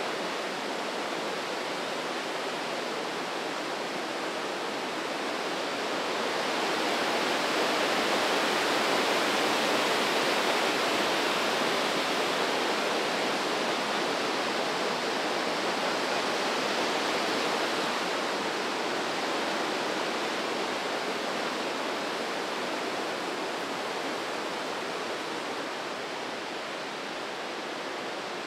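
White water of the Breitach river rushing through its gorge, a steady rush that grows louder a few seconds in and eases again toward the end.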